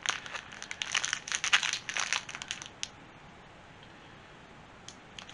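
Clear plastic bag crinkling as the plush toy sealed inside it is handled: a dense run of crackles for about three seconds, then quiet apart from a few faint clicks near the end.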